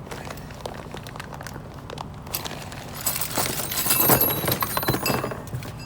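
Small metal brake-kit parts (springs and pins) clinking and jangling as they are handled, with scattered clicks at first and a louder cluster of clinks from about three to five seconds in.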